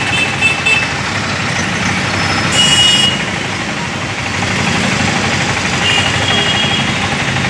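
Busy road traffic noise with vehicle engines running, and short horn tones near the start, about two and a half seconds in and about six seconds in.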